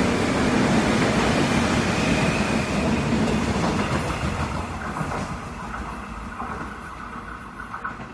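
Seoul Metro electric train pulling away along the platform, wheels clacking on the rails under the hum of its VVVF inverter traction drive. The sound fades steadily once the last car has passed about four seconds in.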